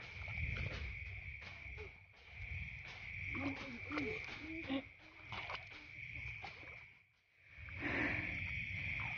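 Night chorus of crickets in a rice field: one steady high-pitched trill that never stops, under rustling and footsteps of people walking through wet grass.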